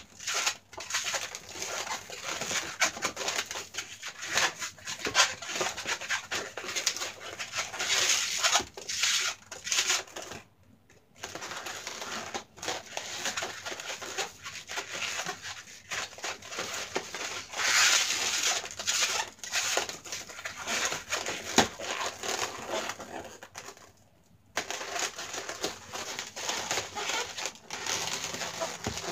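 Yellow latex modelling balloons squeaking and rubbing against each other as they are twisted and woven together. The squeaking stops twice for about half a second, about ten seconds in and again about twenty-four seconds in.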